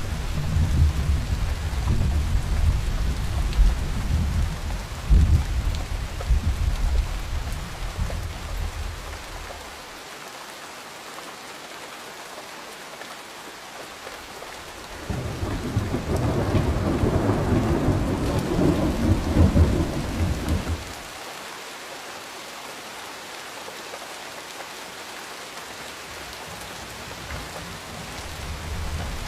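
Steady heavy rain with rolls of thunder: a long low rumble for the first third, a second rumble from about halfway that lasts around six seconds and cuts off suddenly, and another building near the end.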